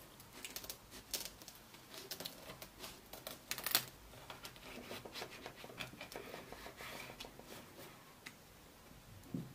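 Sharp knife cutting through a muesli bar sandwiched between thin baking wafers: a run of faint, irregular crisp cracks and scrapes as the blade breaks through the wafer, with one louder crack just before four seconds in.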